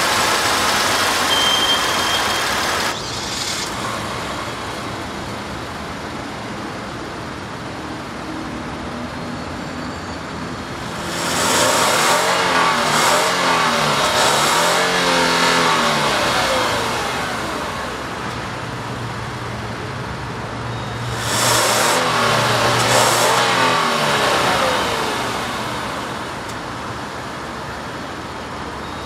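2014 Hyundai Genesis engine idling and revved in two bursts, each of a few quick throttle blips where the pitch climbs and falls back to idle. At the start the revs are settling down from an earlier blip.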